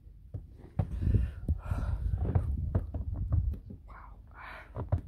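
Handling noise from a handheld camera being moved about: an uneven low rumble with scattered soft thumps and clicks, heaviest in the first half.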